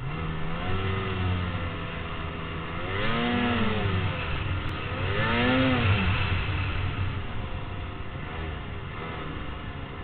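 Engines running, with the pitch rising and falling twice as an engine revs up and back down about three and five seconds in, over a steady low hum.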